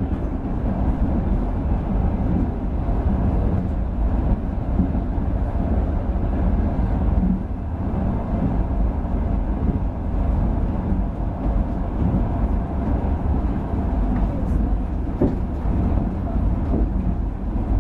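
Steady low rumble of a passenger train running, heard from inside the carriage, with a few faint clicks near the end.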